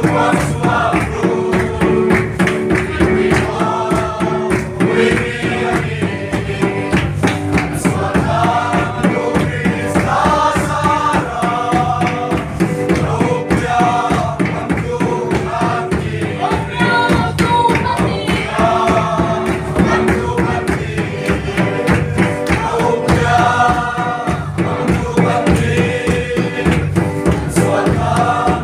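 A group of voices singing a gospel hymn to instrumental accompaniment with a steady beat.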